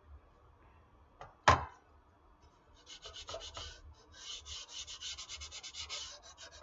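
Hand sanding with 220-grit sandpaper on a foam RC airplane wing's wall-spackle repair: a few short strokes, then quick, even back-and-forth strokes from about four seconds in. Before that, one sharp knock about a second and a half in, as the wing is set down on the glass tabletop.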